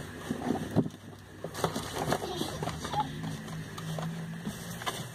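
Boxed cosmetics and plastic packaging being handled and rummaged through: crinkling with many small knocks and clicks, over a faint steady low hum.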